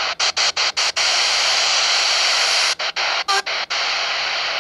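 Smartphone FM radio hissing with static on empty frequencies as it is tuned up the band, the hiss cutting out briefly at each tuning step: a quick run of dropouts in the first second and a few more about three seconds in. The steady static means no station is on the frequency.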